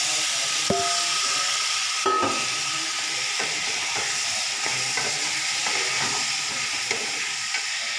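Freshly washed potato cubes sizzling in hot oil in a frying pan, stirred with a wooden spatula that scrapes and knocks against the pan, with one sharp knock near the start.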